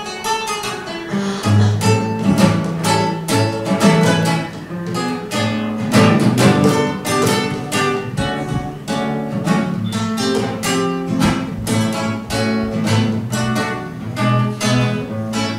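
Acoustic guitar strummed in a steady rhythm, an instrumental break between the sung verses of a ballad.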